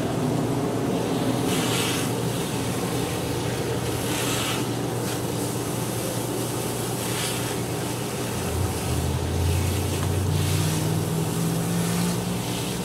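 Water from a garden hose pouring over a person and spattering onto the grass, over a steady machine hum. A second, deeper hum joins for a few seconds past the middle.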